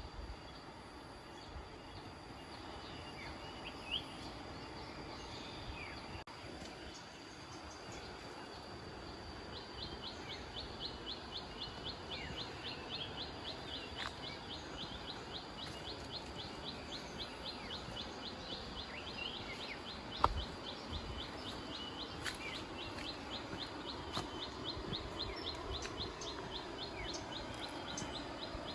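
Countryside ambience with wild birds chirping now and then over a steady high hum. About a third of the way in, a fast, even run of short high notes starts and repeats to the end.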